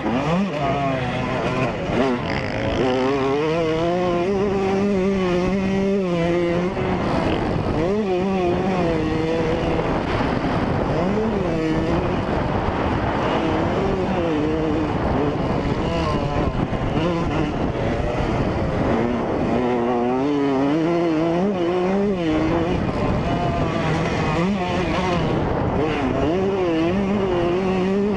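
2003 Yamaha YZ125's 125 cc two-stroke single-cylinder engine being ridden hard on a dirt track, its pitch rising and falling again and again with the throttle. Heard from close up on the bike.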